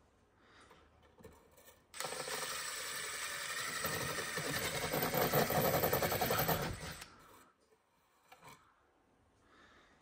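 Cordless impact driver with a long, thin drill bit running for about five seconds, drilling a small hole through the wall from inside an outlet box. It starts about two seconds in, grows a little louder as it bores, then stops suddenly.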